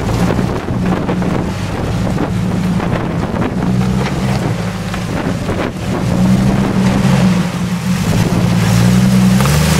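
Jeep Wrangler's 4.0-litre straight-six engine working at low revs as the Jeep crawls up a rocky hill in four-wheel drive, its note rising and falling with the throttle. Wind buffets the microphone.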